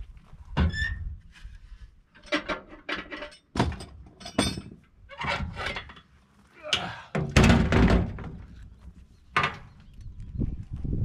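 A dozen or so irregular knocks and clanks, some with a short metallic ring; the heaviest comes about two thirds of the way in.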